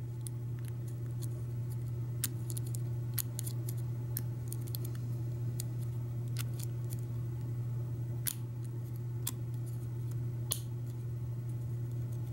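Single-pin picking an American 1100 padlock: the pick's steel tip scrapes and clicks against the pin stacks in scattered light clicks at irregular intervals, over a steady low hum.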